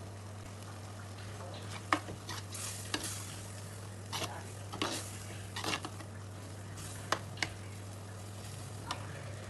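Ground masala paste frying in oil in a kadai as it is stirred, a spatula scraping and now and then clicking sharply against the pan. A steady low hum runs underneath.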